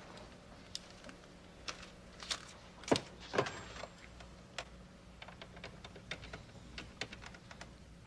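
Light clicks and knocks of a telephone handset and Rolodex being handled on a desk, with two louder knocks about three seconds in as the handset is lifted, then a run of small irregular clicks.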